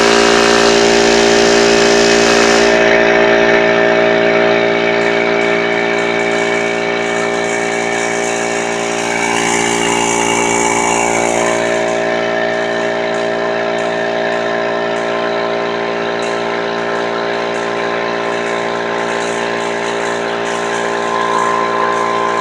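Harbor Freight 21-gallon oil-lubricated piston air compressor running steadily on its first break-in run, a loud, even motor-and-pump drone. A high hiss on top of it drops away about three seconds in.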